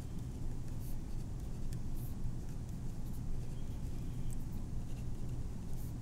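Pen writing on paper: faint, short strokes scattered through, as letters are written one after another, over a steady low hum.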